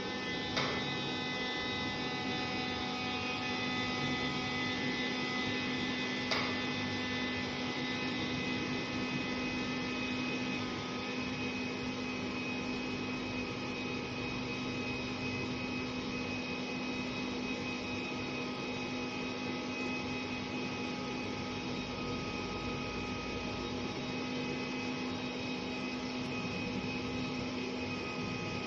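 Steady electrical hum of a BGA rework station running, made of several fixed tones. Two sharp clicks come about half a second in and about six seconds in.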